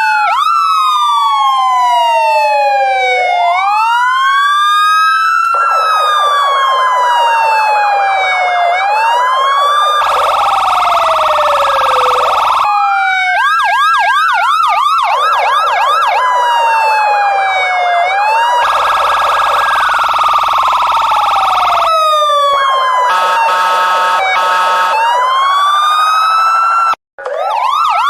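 Electronic police car siren cycling through its tones: slow rising-and-falling wails, quick yelping sweeps, and stretches of a steady buzzing tone, often layered over one another. There is a choppy stuttering passage near the end and a split-second cut-out just before it ends.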